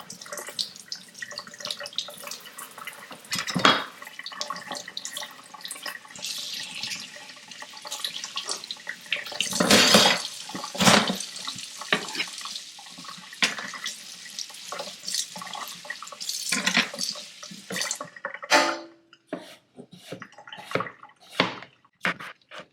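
Kitchen tap running into a sink, with splashing and knocks of things being handled under the water. The water stops near the end, and a few sharp clicks and knocks follow.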